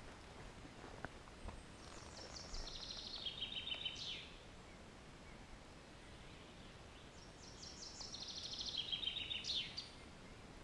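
A songbird singing two songs about five seconds apart. Each song is a fast trill that descends in steps and ends in a short flourish.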